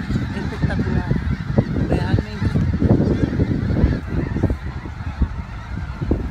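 A large flock of snow geese calling: many overlapping honks at once, over a steady low rumble of wind on the microphone.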